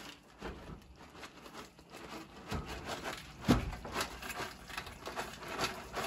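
Dry pasta poured from a plastic bag into a metal pot, the pieces rattling and pattering against the pot, with one sharper knock about three and a half seconds in.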